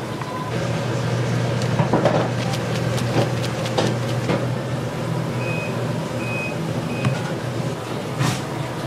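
Restaurant kitchen working noise: a steady low hum of kitchen equipment, with scattered clinks and knocks of metal utensils and three short electronic beeps about halfway through.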